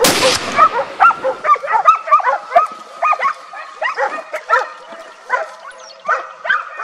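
Hunting dogs yelping and barking in quick, overlapping volleys, giving tongue as they chase wild boar on a driven hunt. A short rush of noise comes right at the start.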